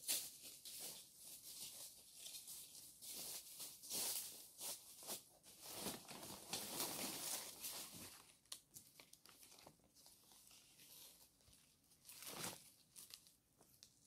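Large dry banana leaves rustling in short irregular bursts as they are handled and shaken out, with a longer stretch of rustling about halfway through.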